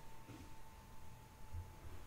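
Quiet room tone: a faint low hum and a thin steady high whine that fades out near the end.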